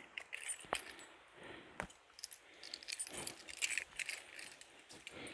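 A bunch of keys jangling in irregular shakes, with light metallic clicks coming and going.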